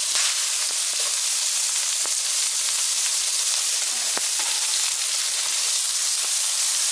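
Hot oil sizzling steadily in a frying pan around freshly added carrot strips, garlic, red onion and chili, with an occasional light tick.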